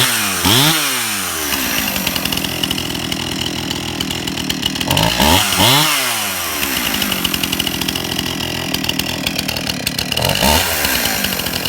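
Stihl two-stroke chainsaw running after being pull-started, idling steadily and blipped up to speed and back down three times: at the start, about halfway through and near the end.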